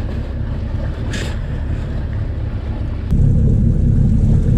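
Boat's outboard engine running, with wind buffeting the microphone and water noise; the low rumble gets suddenly louder about three seconds in.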